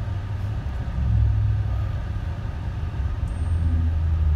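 Low, steady rumble of a car's engine and tyres heard from inside the cabin while it moves slowly in traffic, swelling slightly about a second in and again near the end.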